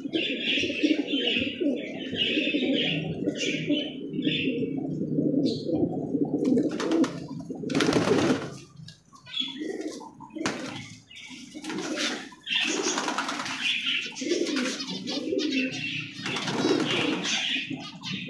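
A flock of domestic fancy pigeons, fantails among them, cooing continuously in overlapping low warbles. Higher bird chirps and a few brief wing flaps come in from about six seconds on.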